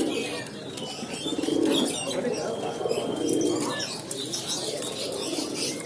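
Several pigeons cooing in repeated low calls, with small birds chirping over them.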